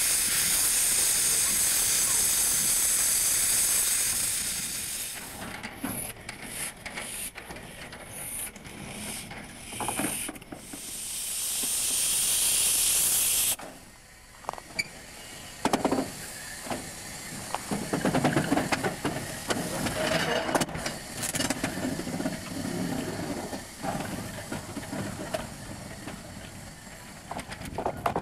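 Steam hissing loudly from a 1908 Orenstein & Koppel 0-4-0 steam locomotive, escaping low at the front near the cylinders. The hiss fades, comes in short spurts, swells again and cuts off suddenly about halfway through. After that come quieter, irregular metallic clanks and knocks.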